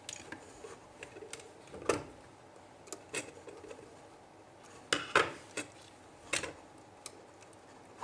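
Scattered sharp clicks and light knocks of a small plastic screw terminal block and a screwdriver being handled while wires are fastened into it. The loudest clicks come about two, five and six seconds in.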